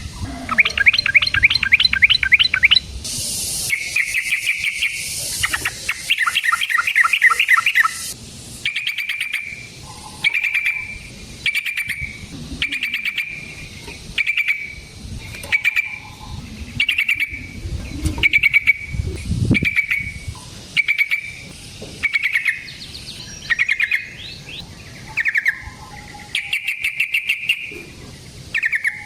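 Yellow-vented bulbul (trucukan) singing loudly. Fast chattering trills in the first few seconds and again near the end, and between them a long run of short, clear notes repeated about once a second.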